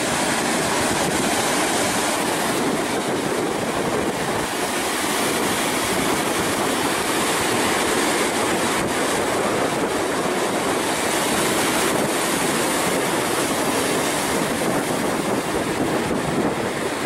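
Ocean surf with wind blowing on the microphone: a loud, steady rushing roar that hardly rises or falls.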